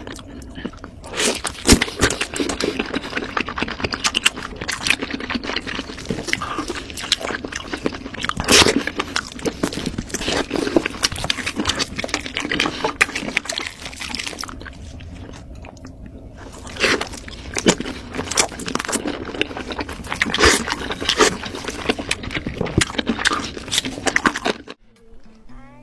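Close-miked sounds of eating roast chicken: the meat torn apart by hand, bitten and chewed, as dense runs of small sharp clicks and crackles. They pause for a couple of seconds a little past halfway and stop just before the end.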